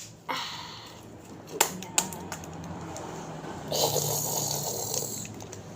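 Plastic wrapper of a clay packet crinkling and rustling as it is pulled at by hand, with a few sharp clicks, and a louder stretch of crinkling near the end.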